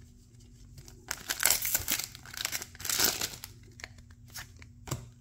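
Plastic booster-pack wrapper crinkling and being torn open, loudest from about a second to three seconds in, followed by a few light clicks as the trading cards inside are handled.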